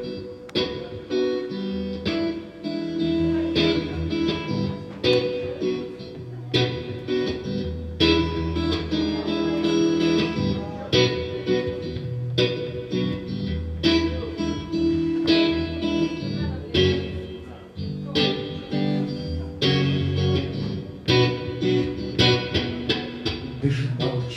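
Electric guitar strumming chords in a steady rhythm, an instrumental passage of a song, with low notes ringing under the chords.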